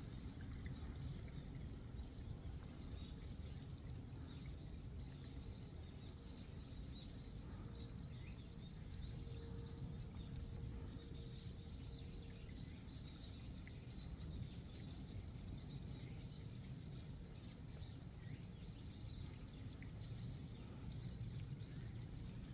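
Faint outdoor ambience: a long series of short high chirps repeating at a steady pace, over a low rumble.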